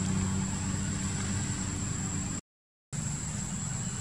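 Steady outdoor background noise: a low rumble under a hiss with a thin, constant high whine. The sound drops out completely for about half a second a little past halfway.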